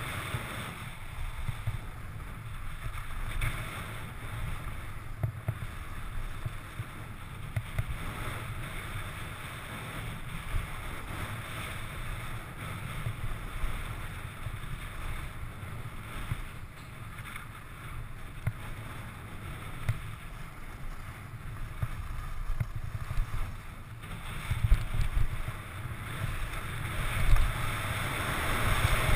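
Wind rushing over an action camera's microphone as a skier runs downhill, with the skis hissing and scraping over packed snow; a couple of sharper knocks near the end.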